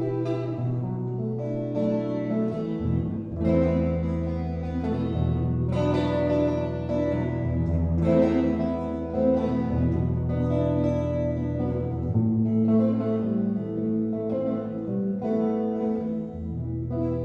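Solo electric guitar playing a slow instrumental passage through an amplifier: picked notes ring over sustained low bass notes that shift every second or two.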